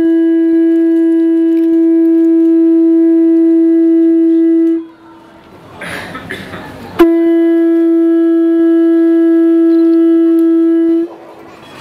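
Nightwatchman's horn blown as the fire-alarm signal: two long, loud blasts on one steady note, each about four to five seconds, about two seconds apart.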